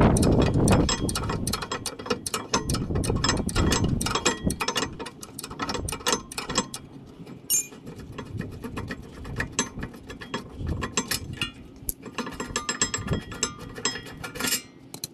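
A 14 mm ratcheting wrench clicking in quick runs as it backs out the rear brake caliper mounting bracket bolts.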